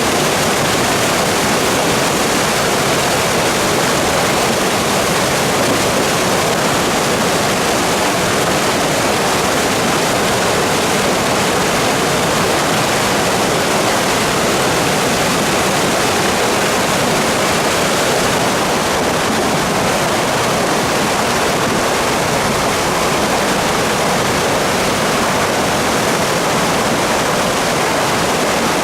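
Swollen mountain river in flood after record typhoon rain, its fast water rushing loud and steady without a break.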